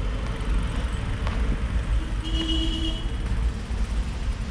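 Steady low rumble of road vehicle noise, with a brief steady pitched tone about two seconds in.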